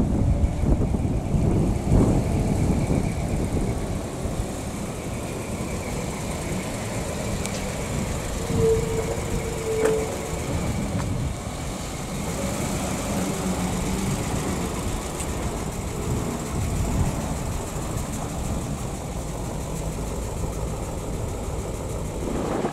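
PAZ-672 bus's V8 petrol engine running as the bus drives, a steady low rumble that is loudest near the start, with its valves freshly adjusted.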